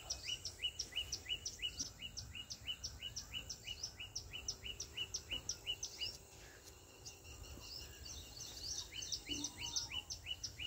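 A bird calling in a rapid, regular series of short, high, falling chirps, about three or four a second; the chirping breaks off about six seconds in and starts again near the end.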